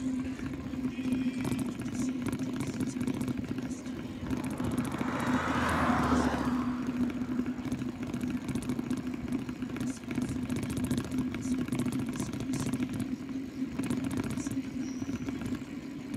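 Steady wind and tyre noise from a bicycle riding along a highway shoulder, with a constant low hum. A motor vehicle passes on the highway about five to six seconds in, swelling and then fading.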